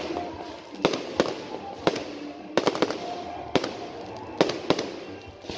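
Aerial fireworks bursting overhead: a string of sharp bangs and crackles, about eight reports spaced irregularly over the few seconds.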